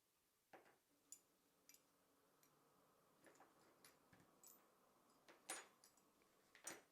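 Faint, irregular small metallic clicks and taps as an Allen key and the jockey wheel bolts and pulleys of a bicycle rear derailleur are worked and handled, with two slightly louder clicks near the end.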